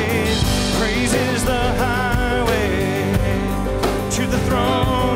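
Live worship band playing with drums and acoustic guitar, and a man singing a drawn-out melody with vibrato.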